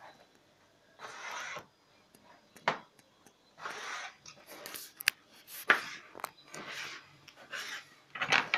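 Kitchen knife slicing an eggplant on a plastic cutting board: several short rasping cuts through the flesh, with a few sharp taps of the blade on the board.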